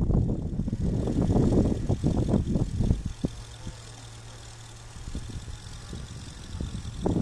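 Wind buffeting the microphone in gusts for the first three seconds and again near the end; in the lull between them, the steady low hum of distant farm machinery engines, a combine harvester and a grain truck.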